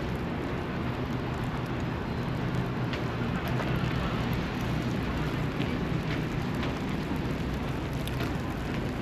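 Steady city street noise: a low traffic rumble under an even hiss, with a few faint ticks.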